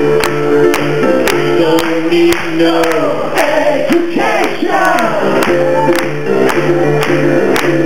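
Male vocal group singing live through the PA, layered harmony voices over a steady beat of about two strokes a second, with a lead voice sliding up and down in the middle.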